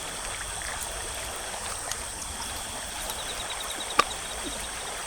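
Forest stream flowing steadily, with a single sharp click about four seconds in.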